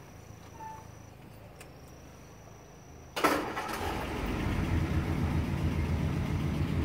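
1949 Ford's engine being started: quiet at first, then the starter engages with a sudden loud clatter about three seconds in, the engine catches within a second and keeps running steadily.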